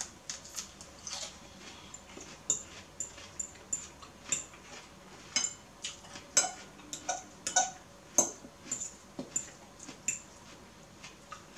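Eating at a table: a metal fork clicking and scraping against a bowl of noodles, mixed with chewing. Sharp small clicks come irregularly throughout, with a few louder ones between about five and eight seconds in.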